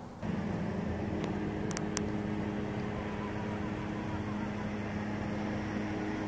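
A steady mechanical hum, with a few faint clicks between about one and two seconds in.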